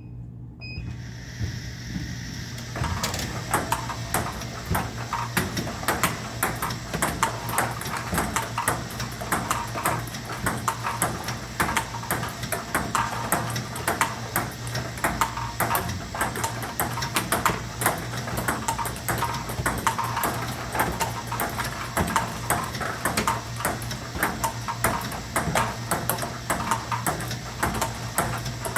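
Table tennis rally against a ball-feeding robot: a quick, continuous run of ping-pong ball clicks as balls bounce on the table and are hit with a paddle, over a low steady hum. The clicks grow louder about three seconds in.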